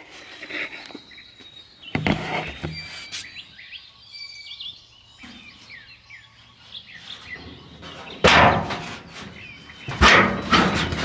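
Birds chirping in the background, with a few sharp knocks about two and three seconds in and two loud whooshing noises near the end.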